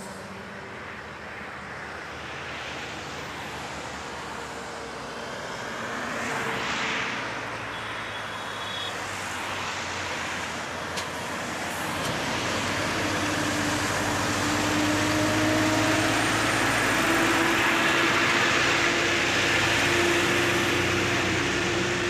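Heavy-haul truck's diesel engine and the tyres of its long multi-axle trailer, growing louder as the rig approaches and passes, with a steady engine drone. Another vehicle passes briefly about six or seven seconds in.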